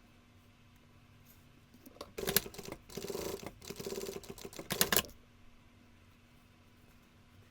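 Sewing machine running in a burst of about three seconds, a fast mechanical rattle that starts about two seconds in and stops abruptly.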